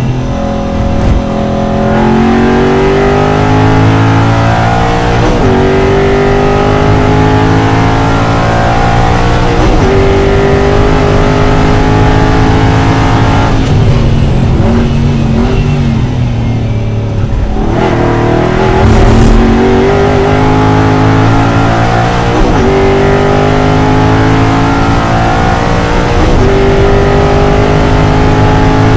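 Aston Martin V8 Vantage GT4's V8 engine heard from inside the car at racing speed, accelerating hard and shifting up every few seconds. About halfway through it lifts off and the revs fall through downshifts for a few seconds, then it pulls hard through the gears again.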